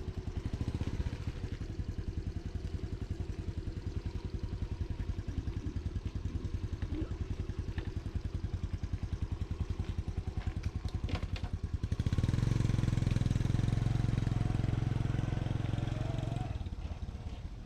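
Single-cylinder engine of a Honda Hunter Cub motorcycle running with an even, rapid beat. It gets noticeably louder about twelve seconds in, then eases off near the end.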